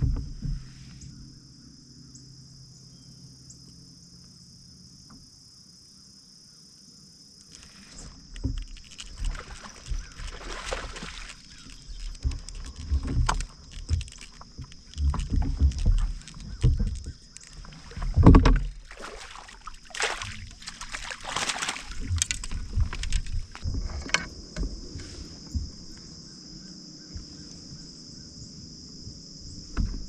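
Kayak moving on a lake, with water splashing and sloshing in irregular bursts and low knocks against the hull. These begin after several quiet seconds, over a steady high-pitched drone.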